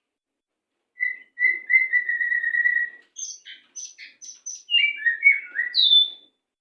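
White-rumped shama (murai) singing a fast song: after a second of silence, a string of quick notes held at one pitch, then a rapid run of varied high chirps and falling whistled notes, ending with a short downward slur.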